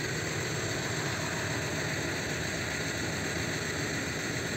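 Engine running steadily, an even low hum with a hiss over it.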